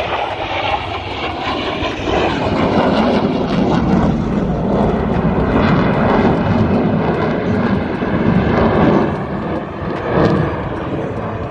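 Military jet flying past and overhead, its engine noise loud and steady, with a wavering, whooshing edge in the middle of the pass.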